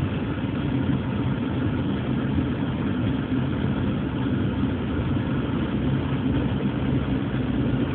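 A car's engine and road noise heard from inside the cabin while driving, a steady low hum with no change in pitch.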